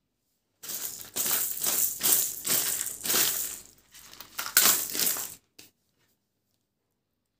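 Plastic candy wrappers and packets crinkling and rattling as a handful of wrapped candies is dropped onto a heap of sweets. Several rustling surges start about half a second in and stop suddenly after about five seconds, followed by a faint click.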